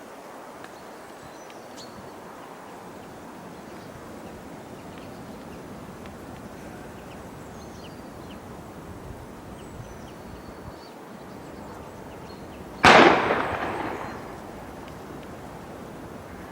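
A few faint, short blue tit calls, then one sudden loud bang near the end that dies away over about a second and a half.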